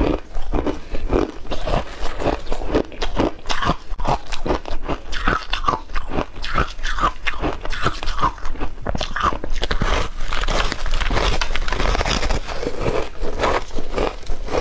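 Close-miked crunching and chewing of frozen matcha ice coated in white powder: rapid, dense crunches of bites and chewing throughout.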